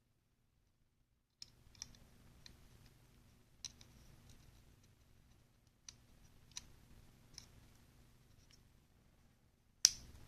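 Small sharp clicks and taps of folding-knife parts and small tools being handled during reassembly. A scattered handful of them begins after about a second and a half of silence, and the loudest click comes near the end.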